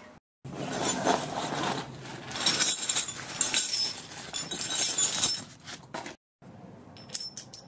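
Roof top tent mounting hardware (steel brackets, bolts in a plastic bag and open-end wrenches) clinking and jangling as it is shaken out of a fabric bag onto concrete, with rustling of the bag. The jangling is loudest in the middle, and a few light metal clicks follow near the end.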